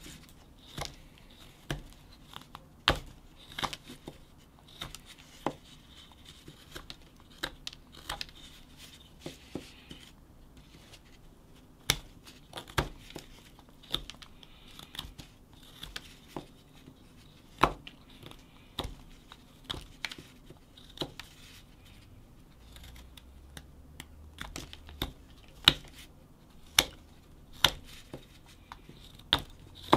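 Whittling knife slicing chips off a wooden block: irregular short, crisp cuts and scrapes, one or two a second, a few of them louder snaps. The knife is knocking the corners off to round over the top of the carving.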